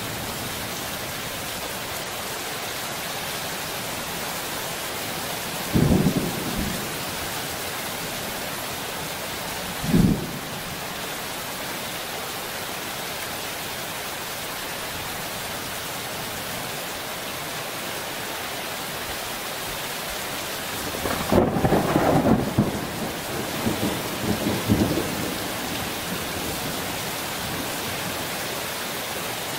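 Thunderstorm: steady rain with thunder, two short claps in the first third and a longer, louder rolling rumble past the middle.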